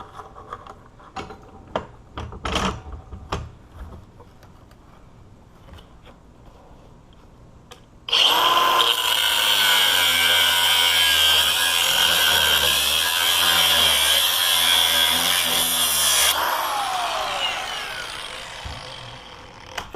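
A few handling clicks, then about eight seconds in a power tool with a cutoff wheel starts, spins up and cuts into the steel body of a disk padlock for about eight seconds. It then switches off and winds down with a falling whine.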